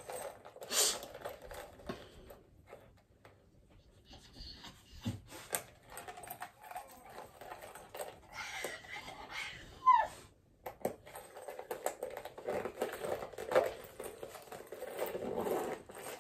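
Small metal chain strap clinking and its clasps clicking as it is hooked onto a small purse, with soft handling noises and irregular light clicks.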